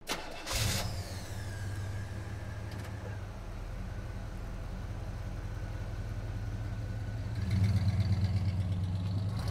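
A car engine idling with a steady low rumble, getting louder about three-quarters of the way through. A short whoosh about half a second in.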